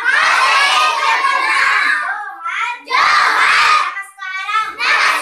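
Schoolgirls' voices saying Santhali phrases loudly, in three short stretches with brief pauses between.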